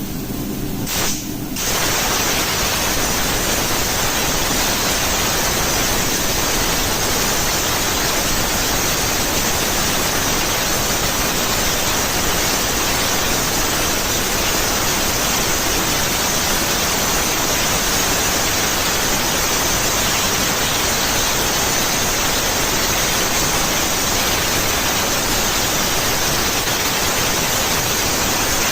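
Unitor plasma cutter's torch arc cutting metal: a loud, steady hiss of the plasma arc and its air jet. It starts about a second and a half in, after a brief low hum and a couple of clicks.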